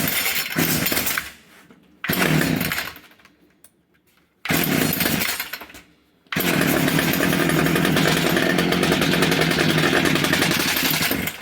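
Homelite i625cd gas string trimmer's small two-stroke engine on its new replacement carburetor: it fires and dies three times in quick succession, then catches and runs steadily for about five seconds before cutting out near the end, its idle set too low.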